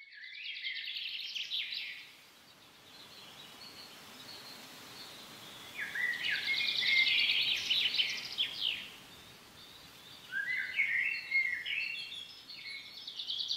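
A songbird singing in three bursts of rapid, high twittering trills and chirps, with pauses of a few seconds between them.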